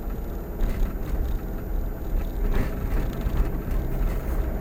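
A car being driven on a cold engine: steady engine and road rumble with the rhythmic "dugga dugga" tapping/knocking that comes only when cold. The owner first took it for valve-train or tappet noise, and now suspects a partly seized universal joint that needs warming up.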